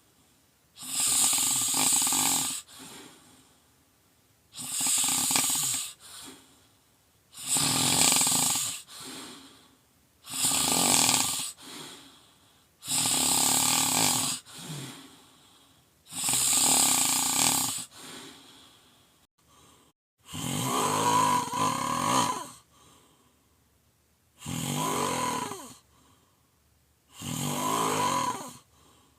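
A sleeping person snoring loudly and rhythmically, a loud rasping snore about every three seconds, each followed by a fainter breath. The last few snores, beginning about twenty seconds in, take on a wavering pitched tone.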